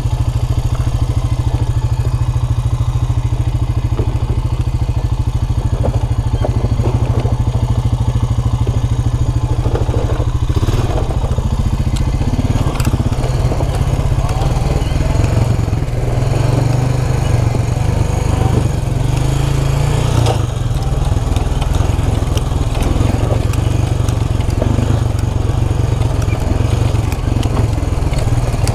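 Motorcycle engine running as the bike picks its way down a rough, rocky trail: steady for the first ten seconds or so, then uneven, with a few sharp knocks from the bike striking rocks.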